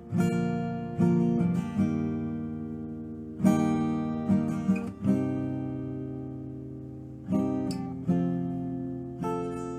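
Background music: an acoustic guitar strumming chords at an unhurried, uneven pace, each chord left to ring out and fade before the next.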